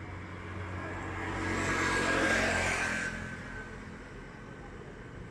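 A road vehicle passing close by, its noise swelling for about two seconds and then fading away, over a steady low hum.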